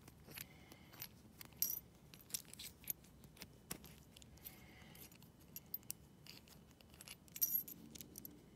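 Small metallic clicks and clinks of a stainless steel eyebolt and its washers being handled against a neodymium fishing magnet, some with a brief high ring. The loudest clinks come about a second and a half in and near the end.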